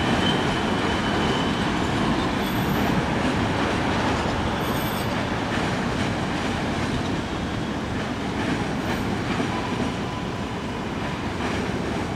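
R188 subway train rolling away around a curve on elevated track: a steady rumble of wheels and cars that slowly fades, with brief thin wheel squeals now and then.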